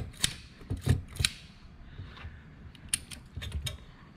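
Irregular small metallic clicks and ticks of stainless safety wire and lockwire pliers being handled, as lock wire is twisted and worked on an aircraft engine's oil filter. There are about a dozen sharp clicks, the loudest in the first second and a cluster near the end.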